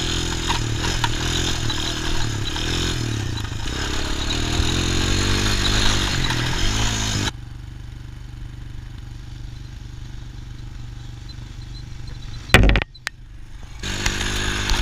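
ATV engine running, its speed rising and falling, with wind buffeting the microphone. About seven seconds in the sound drops to a quieter, lower engine hum, a single loud knock follows near the end, and the louder engine and wind return.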